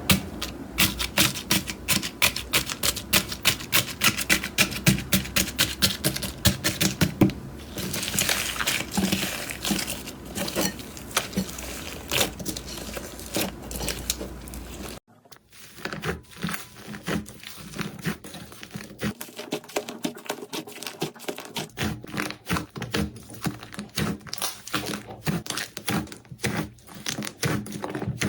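Slime being squeezed and pressed by hand, making rapid sticky clicks and crackling pops. The sound changes abruptly about halfway through, with a second stretch of sparser, crisper clicks.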